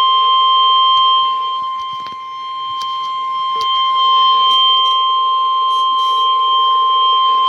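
Weatheradio warning alarm tone: one steady, unbroken high beep at about 1050 Hz, heard through a weather radio receiver. It fades briefly about two seconds in. The tone signals that a warning message follows.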